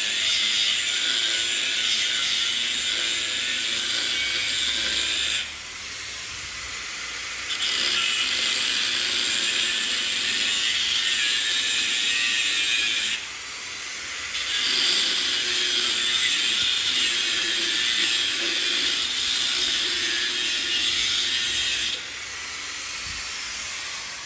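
Angle grinder cutting into the steel shell of an LG hermetic compressor, a steady harsh grinding. Twice the grinding drops away for a second or two and comes back, and about 22 seconds in it stops and the sound fades.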